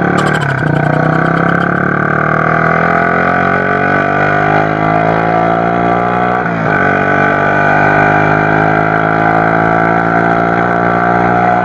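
Motorcycle with a loud aftermarket Sinaeng exhaust pipe accelerating at full throttle. The engine pitch climbs steadily, drops sharply about halfway through at a gear change, then climbs again.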